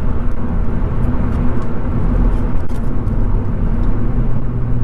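Mk7 Ford Fiesta ST's 1.6 EcoBoost turbocharged four-cylinder engine running steadily on the move through a Milltek non-resonated exhaust, with road noise, heard from inside the cabin.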